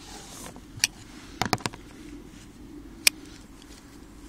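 A few sharp clicks and light knocks of a wooden-handled Laguiole folding knife being handled on a table. There is one click just under a second in, a quick group of three around a second and a half, and the loudest single click about three seconds in, over a low steady background hum.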